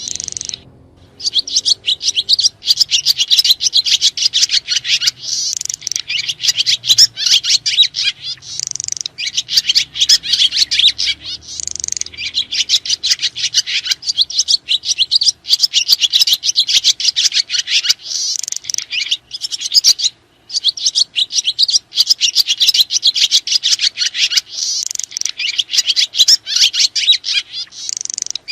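Sriti swiftlets twittering: a dense, continuous run of rapid high chirps, broken by short pauses about a second in and about twenty seconds in.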